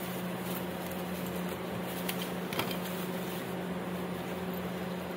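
Steady low machine hum with one constant tone, under faint rustling of plastic takeout bags and a couple of light clicks a little after two seconds in.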